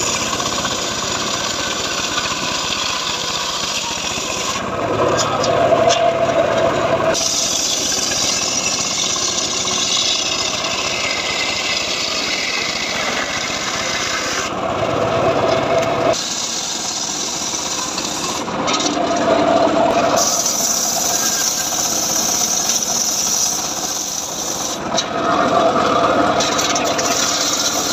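Homemade engine-driven circular log saw (gergaji srekel) cutting johar wood. It runs continuously, and the sound of the cut changes in about four spells as the blade goes through the wood.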